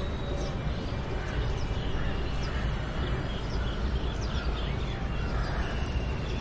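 Open-air ambience: a steady low background rumble, with faint bird chirps now and then.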